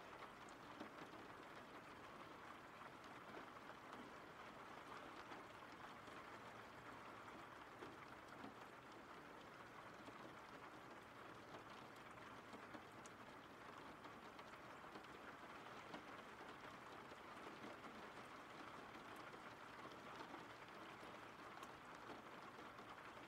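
Faint, steady rain: an even hiss with scattered drop ticks.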